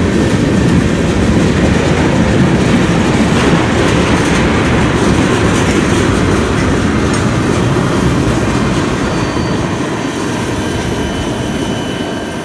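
Mixed freight train's cars rolling past close by: a loud, steady rumble of wheels on rail that fades over the last few seconds as the end of the train goes by.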